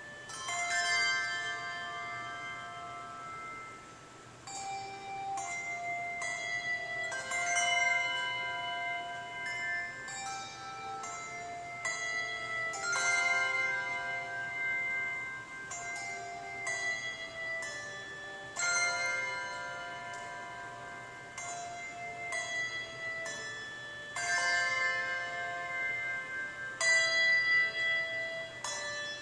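Handbell choir ringing brass handbells: chords of several bells struck together and left to ring and overlap, with a new chord every second or two.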